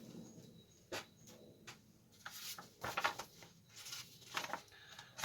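Brief bursts of plastic bag and paper rustling, with a few light clicks, as small kit parts are handled and packed away.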